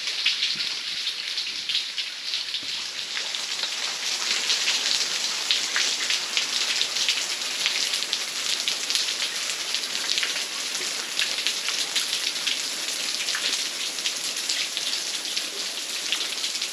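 Water from a small waterfall splashing and pattering onto rock in a steady, dense spatter.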